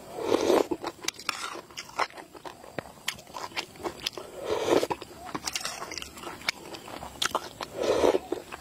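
Close-miked mouth sounds of a man eating eggs in a spicy sauce: wet chewing and lip-smacking clicks, with three longer, louder sucks from a spoon, about half a second in, near the middle and near the end.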